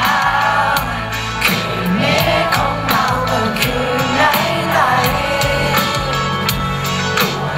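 Live band playing a song through a concert PA, with a male vocalist singing over a steady drum beat.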